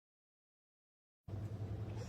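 Dead silence, then about a second in a steady low hum cuts in abruptly and continues.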